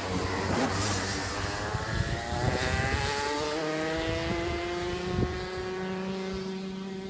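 Rotax Max kart's 125 cc two-stroke single-cylinder engine accelerating past out of a corner and away, its pitch climbing steadily as it gets fainter.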